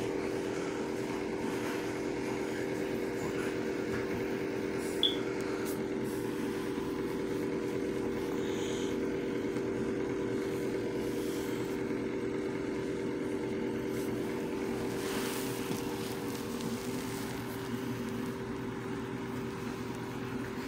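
A steady mechanical hum at an even pitch, with one brief high chirp about five seconds in.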